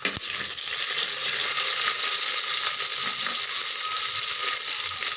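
Whole spices, dried red chillies and green chillies sizzling steadily in hot oil in a clay pot (manchatti) for a tempering, with a single spoon knock against the pot at the start.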